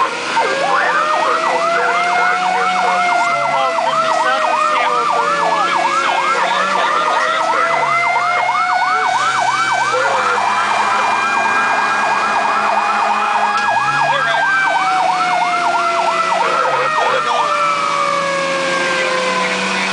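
Fire truck siren heard from inside the cab while responding: a fast yelp warbling about three to four times a second, over a slower wailing tone that rises and falls. The yelp stops near the end while the wail keeps winding down.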